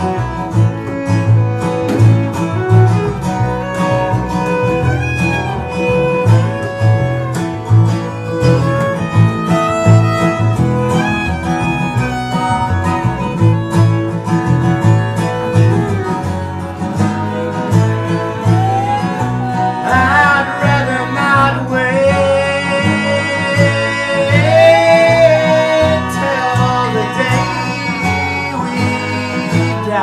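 Live acoustic folk/bluegrass trio playing an instrumental passage: fiddle melody over acoustic guitar and plucked upright double bass keeping a steady pulse. The fiddle line comes forward strongly about two-thirds of the way through.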